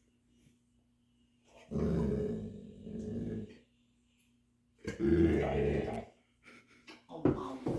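A dog making low, drawn-out vocal sounds twice: one about two seconds in lasting nearly two seconds, another about five seconds in lasting about a second, with a few short sounds near the end.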